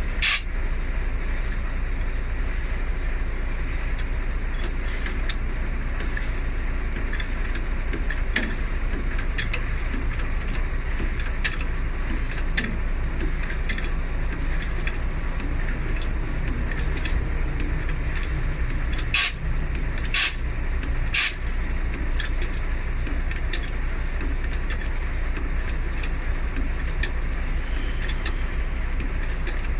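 A heavy diesel vehicle idles with a steady low hum, while scattered sharp clicks and metallic knocks from tools at work on the tyre change ring out. Three louder knocks come close together about two-thirds of the way through.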